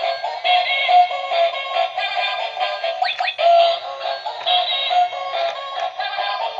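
Electronic toy cat playing a high-pitched synthesized song with a sped-up singing voice through its small speaker, thin and without bass. The same short tune repeats about every three and a half seconds, with a quick sweeping sound about three seconds in.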